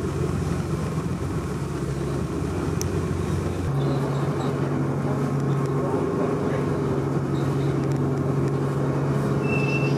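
Steady drone of a passenger ferry's engine heard from inside the cabin: a low hum with a few held tones, whose pitch shifts slightly about four seconds in.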